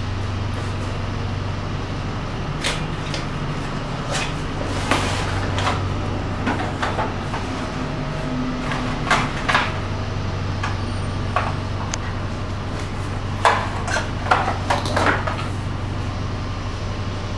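A cardboard box and its paperboard insert being opened and handled on a wooden table: scattered clicks, taps and rustles in small bunches, over a steady low hum.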